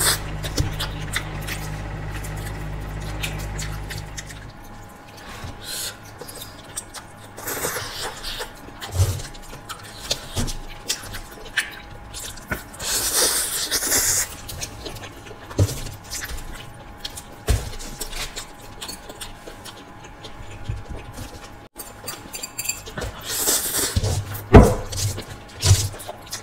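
Close-miked eating: noodles being slurped and chewed, with several long slurps and small clicks and scrapes of forks on aluminium foil.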